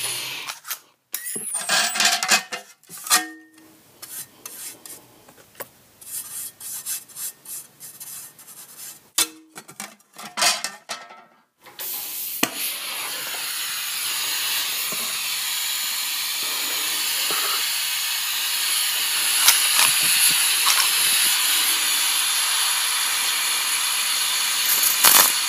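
Clicks and scrapes of handling the work for about twelve seconds. Then an oxy-hydrogen gas welding torch flame starts abruptly and hisses steadily, with a few sharp clicks, as magnesium sheet is gas welded.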